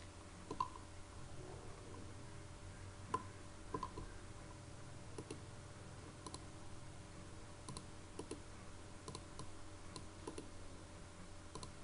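Computer mouse clicking: about a dozen separate clicks at uneven intervals, over a faint steady hum.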